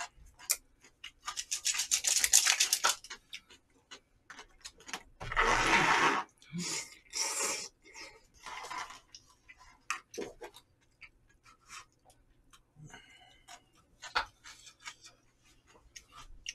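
Jjamppong noodles slurped up in several long, noisy slurps, the loudest about five seconds in, with short clicks between.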